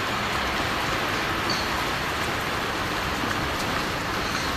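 Steady rain falling, an even hiss with no rhythm.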